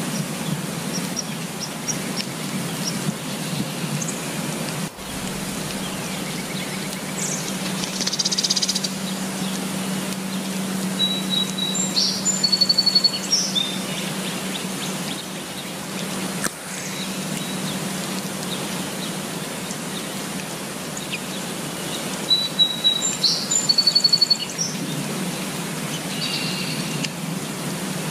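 Steady rain hiss with songbirds calling over it in short chirps and trills; the busiest bursts of birdsong come about halfway through and again near the end.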